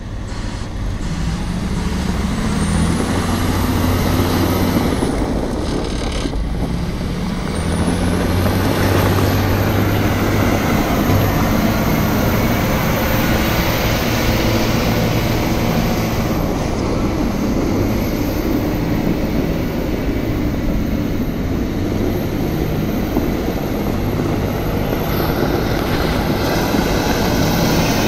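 Caterpillar 972M wheel loader's six-cylinder diesel engine running as the loader drives and turns, its note rising and easing several times.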